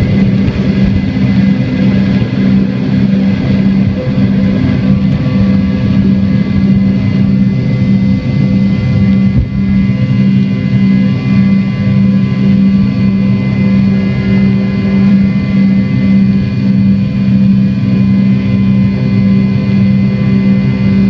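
Jet airliner engines at takeoff power, heard from inside the passenger cabin during takeoff and the first climb: a loud, steady roar with a steady low hum running through it.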